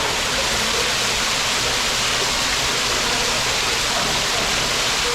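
Steady rush of falling water, an even hiss with no breaks: the indoor waterfall of a tropical aviary.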